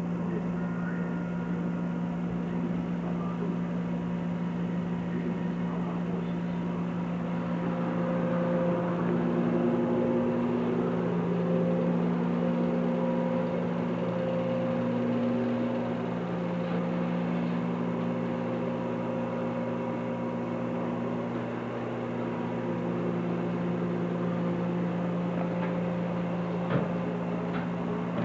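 A motor or engine running steadily, its hum holding several pitches that shift slightly now and then, with one sharp knock near the end.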